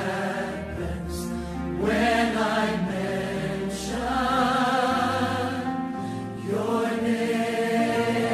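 Choral music: voices singing long, held notes over an accompaniment, with new phrases starting about two, four and six and a half seconds in.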